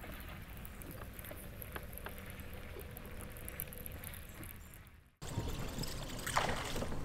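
Faint lake ambience of light trickling and lapping water with a few small clicks. It breaks off abruptly about five seconds in, and a louder outdoor ambience with a brief swish follows.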